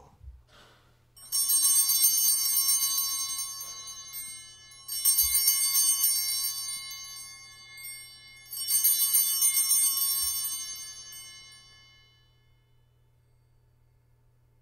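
Altar bells rung three times at the elevation of the consecrated host. Each ring starts sharply and fades away over a few seconds; the third dies out near the end.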